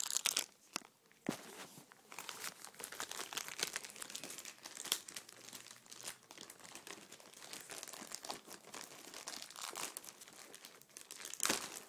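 A magazine's mail packaging being torn open and handled: continuous crinkling and tearing with sharp crackles, loudest at the very start and again near the end.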